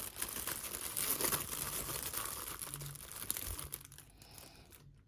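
Plastic packaging crinkling and rustling as it is opened by hand, dying away about four seconds in.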